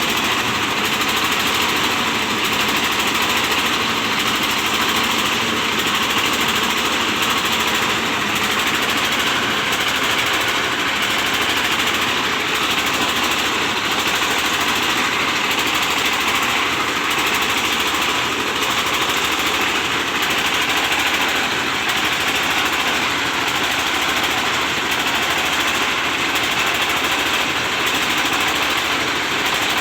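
Rice milling machine driven by an old 24 hp Dongfeng diesel engine, running steadily with a loud, continuous, even mechanical noise.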